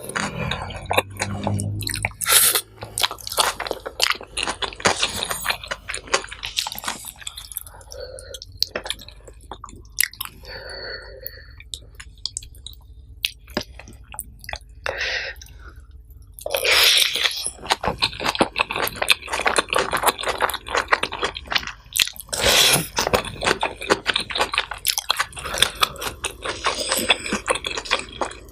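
A person chewing and crunching mouthfuls of nasi pecel, with wet squishing and crisp crunches. The crunching comes in busier spells about halfway through and again later on.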